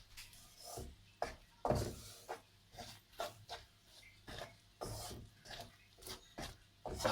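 A spoon scraping the bottom of a pan while stirring a thickening cashew and sugar-syrup mixture for kaju katli, in short, irregular strokes.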